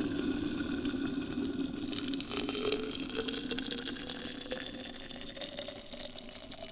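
Just-boiled water pouring from a stainless steel electric kettle into a Stanley stainless steel vacuum food jar. The pouring note rises slowly as the jar fills, and the pour eases off toward the end.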